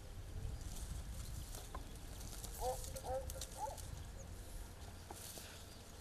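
Outdoor ambience: a steady low rumble of wind on the microphone, with a quick run of three or four short animal calls about midway through.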